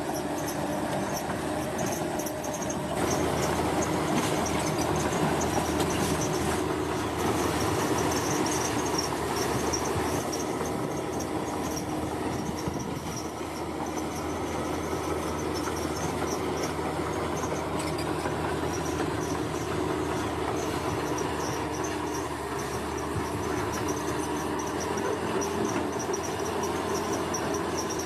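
Heavy construction machinery running steadily, a continuous engine rumble that swells a little from about four seconds in, with insects chirping high above it.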